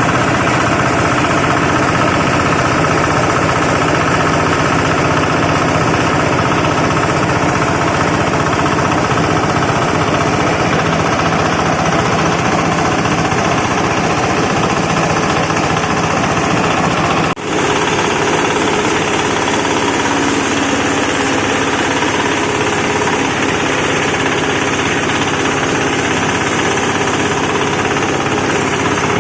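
Wood-shaving machine for chicken litter running steadily with a loud mechanical clatter. It breaks off for an instant about seventeen seconds in, then carries on.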